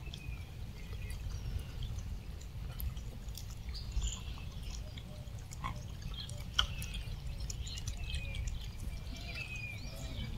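Outdoor ambience: a steady low wind rumble on the microphone, with scattered short high chirps and a few faint clicks.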